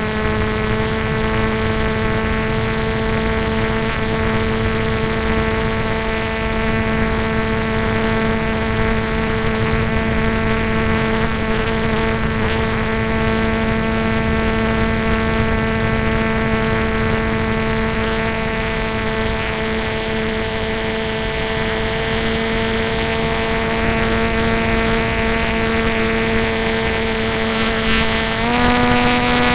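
Propeller aircraft's engine and propeller drone, heard from an onboard camera, holding one steady pitch with a rush of air underneath. Near the end the pitch steps up as the throttle is opened.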